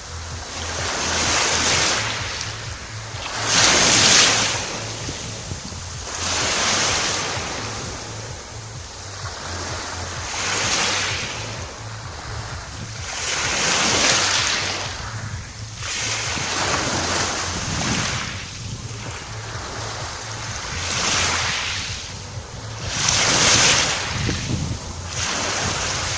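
Sea waves breaking and washing on the shore, one surge every three to four seconds, with wind rumbling on the microphone.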